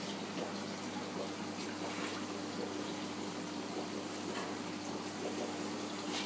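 Aquarium water circulating: a steady trickle and bubbling from the filter return and aeration, over a steady low hum.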